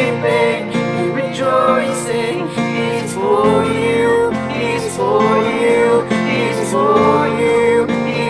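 Worship song music: strummed acoustic guitar and keyboard, with long held notes that bend like singing.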